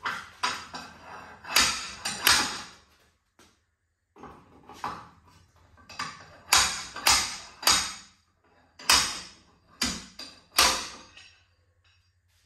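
About a dozen sharp metal clanks at uneven intervals, with a brief pause about three seconds in. They come from an old slide hammer whose weight is being driven against its stop while it is hooked behind a rear wheel hub bearing, to jerk the old bearing loose from the knuckle.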